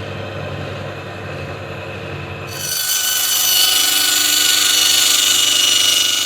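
Engine-driven sawmill running steadily, then the saw biting into a log about two and a half seconds in: a louder, higher sawing sound over the engine.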